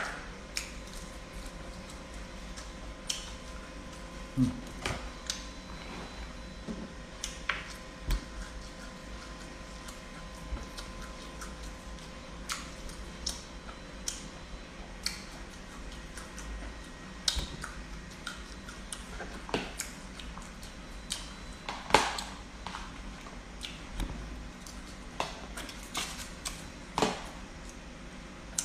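Irregular small clicks and taps of a metal spoon and fingers against plastic food containers while someone eats, spaced a second or so apart, over a faint steady hum.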